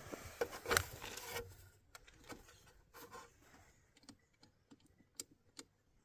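Scattered light clicks and knocks, busier in the first second and a half, then sparse and faint.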